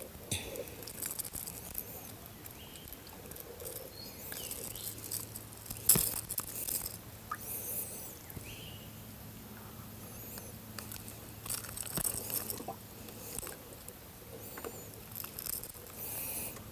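Small clicks, scrapes and rustles of a metal fish lip grip, lure hooks and a hooked grouper being handled as the fish is unhooked, with a sharp click about six seconds in and another about twelve seconds in. A faint low hum runs under the middle.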